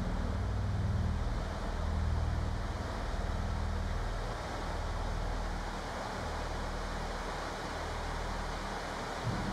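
Electronic drone music: a dense hissing wash, like wind or surf, over low sustained rumbling drones. The low drones ease off through the middle and swell back up near the end.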